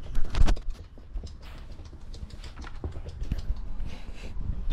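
Cocker spaniel puppy scrabbling at and bumping against the camera: a couple of louder thumps about half a second in, then scattered clicks and knocks.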